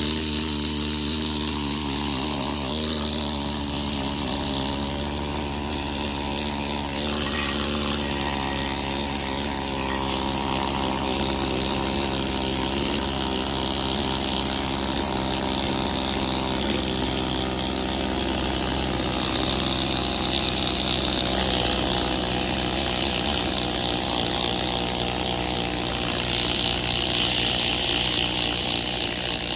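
Pneumatic needle scaler running steadily against a rusty 14-bolt differential, chipping off loose rust scale.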